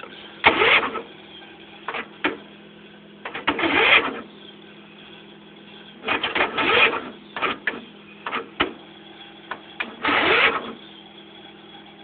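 Old Scotsman riding mower's starter cranking in four short bursts, the engine failing to catch in the cold.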